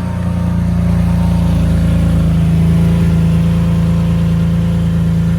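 BMW S54 straight-six engine in a 1991 E30 M3 idling steadily just after start-up.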